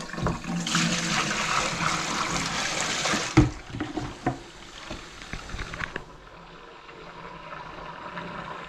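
Water running from a kitchen tap into a stainless-steel sink and down its freshly snaked drain, a test run after breaking through a grease clog in the drain line. The flow is loud and splashy for the first three seconds, with a single knock about three and a half seconds in, then settles to a softer steady stream.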